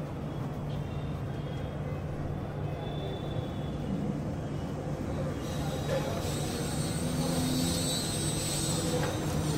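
Steady rumble of street traffic, with a high hiss joining about halfway through.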